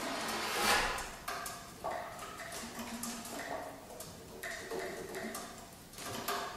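A saxophone quartet (soprano, alto, tenor and baritone saxophones) playing contemporary music built on Arabic maqam modes: soft held notes at several pitches that enter abruptly and overlap, with breathy, airy attacks, the loudest just under a second in.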